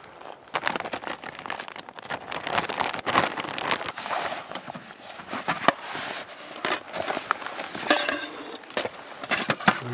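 Plastic zip-top bag crinkling and crackling as cake mix, an egg and water are kneaded together inside it by hand, in an irregular run of rustles and small clicks.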